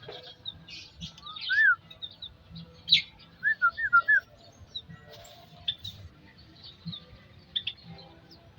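Several small aviary birds chirping, with short high chirps throughout. A few clear whistled notes rise and fall about a second and a half in, and again as a quick run of three or four around three and a half to four seconds in.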